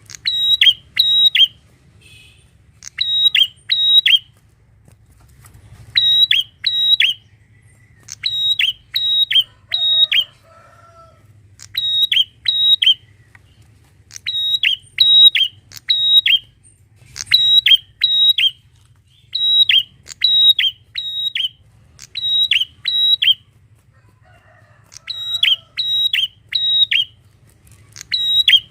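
Prinia (prenjak) calling loudly: sharp, high notes given in quick bunches of two to four, with short pauses between bunches, repeated over and over.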